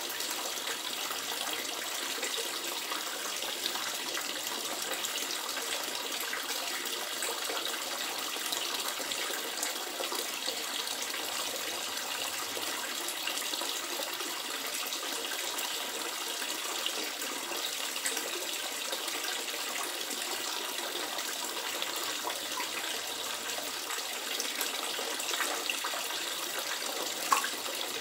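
Steady running water splashing into a garden fish pond, with one short, sharper splash near the end as a fish strikes at the surface.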